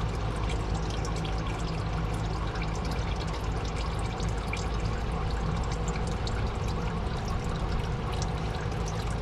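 Used engine oil draining from the oil pan of a Ford F-150's 2.7 EcoBoost V6 into a drain pan, a steady pouring trickle.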